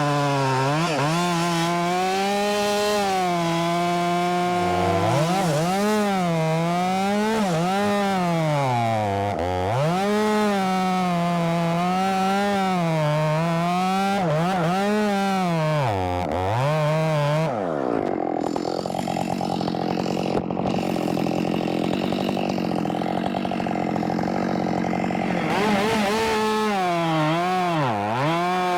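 Ported Husqvarna 572 XP two-stroke chainsaw with a 24-inch bar and full-chisel chain, cutting oak: the engine screams at high revs and its pitch dips again and again as the chain bites and bogs, then recovers. About two-thirds of the way in it drops to a lower, steady note for several seconds. Near the end it revs up and cuts again.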